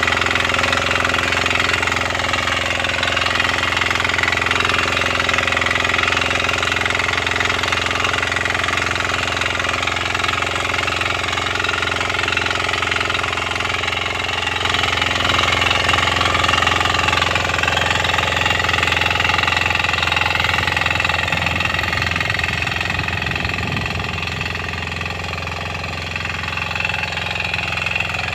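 Kisan Kraft 300D 6 hp diesel power weeder running steadily under load, its single-cylinder engine driving the rotary tines through the soil.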